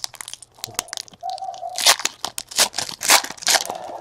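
Baseball card pack wrappers being torn open and crinkled, with cards shuffled and handled: a run of quick rustles and clicks, loudest in a few bursts of ripping about halfway through.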